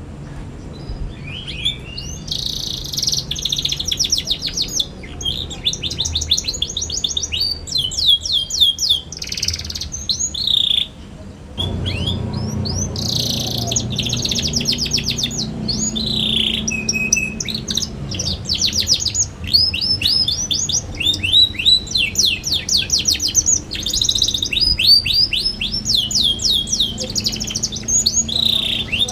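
Young canary singing a fast, chattering song of rapid repeated chirps and trills, with a short pause about halfway through.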